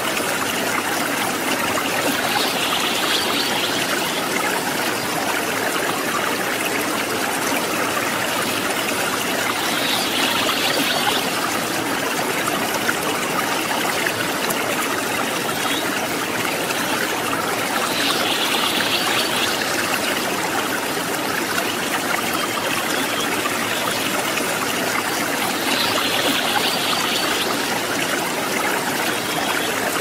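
River water flowing over rocks in a steady, even rush. A brief higher sound about a second long recurs four times at even spacing, about every eight seconds.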